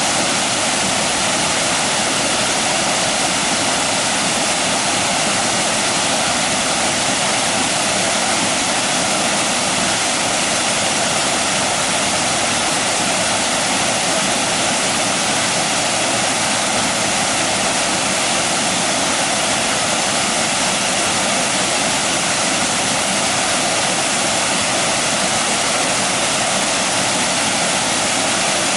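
Water pouring steadily over a small drop in a concrete irrigation channel, a loud, even rushing with no let-up.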